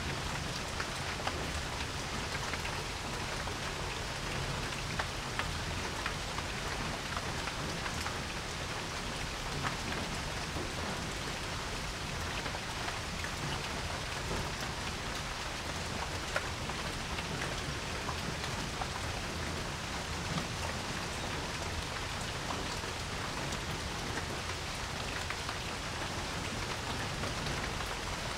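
Steady rain falling on a porch, an even hiss with scattered individual drops ticking.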